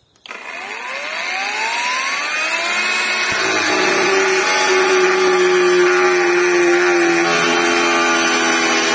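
Cordless angle grinder spinning up with a rising whine over about three seconds, then the disc cutting into a metal strip, the motor running on steadily and slightly lower in pitch under the load.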